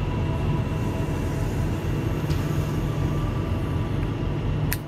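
Steady low drone of idling diesel truck engines, with a single sharp metallic snap near the end as the cutting pliers close on a nail stuck in the truck tire's tread.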